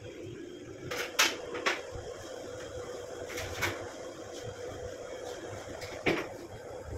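Several sharp clicks and knocks, five in all with the loudest about a second in and another near the end, over a steady low hum, like kitchen utensils and dishes being handled while food is prepared.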